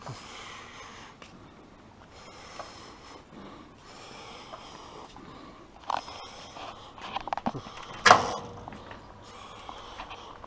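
Faint, hazy rustling noise, then a series of clicks and knocks from objects being handled, with one sharp clunk about eight seconds in.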